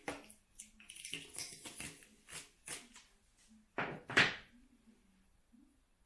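Handling noises from unboxing a small model: a string of clicks, taps and brief rustles, with two louder knocks close together about four seconds in.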